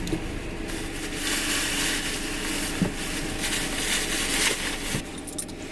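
Rustling and crinkling from things being handled, in two louder stretches.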